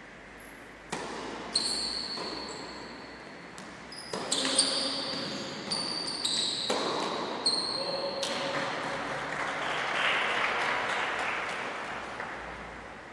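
Tennis rally: racquet strikes and ball bounces on the court, echoing around a large sports hall. A short burst of applause follows and fades out near the end.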